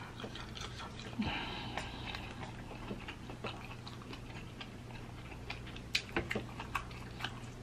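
Metal fork tines clicking and tapping against a plate while cutting a seared scallop, as scattered faint ticks with a small cluster about six seconds in, over a low steady hum.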